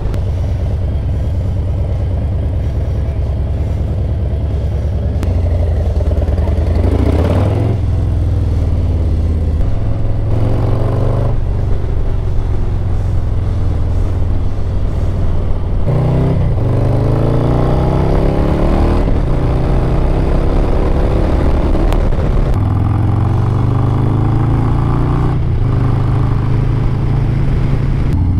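Harley-Davidson Low Rider ST's Milwaukee-Eight 117 V-twin running hard on the road, fitted with a new S&S Stealth Air Stinger air cleaner. Its pitch climbs several times under acceleration and drops back at each gear change.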